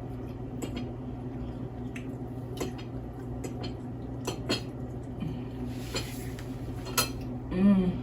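Cutlery clinking against dishes while eating, a few sharp scattered clicks over a steady low hum. A brief voice sound near the end.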